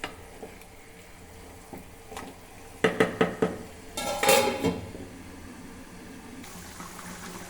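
A metal spoon knocking and scraping against a cooking pot as a chicken curry is stirred. A quick run of sharp knocks comes about three seconds in, then a louder ringing clatter about a second later.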